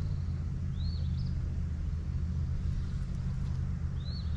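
Steady low outdoor rumble, with a songbird's short rising-and-falling chirp about a second in and again near the end.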